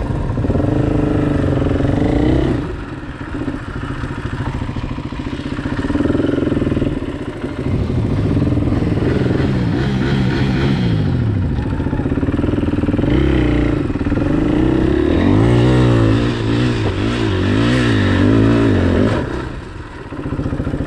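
Motorcycle engine revving up and down again and again, its pitch wavering quickly as the throttle is worked over rough ground. The engine eases off briefly about three seconds in and again near the end.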